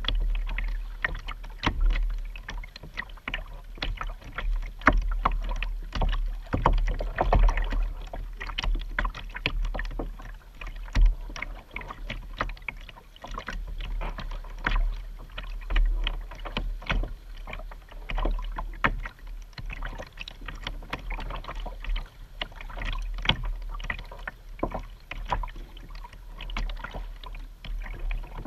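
Double-bladed paddle strokes on a Vibe Yellowfin 100 sit-on-top kayak: irregular splashes and drips as the blades dip alternately on each side, with water slapping the plastic hull, over a steady low rumble.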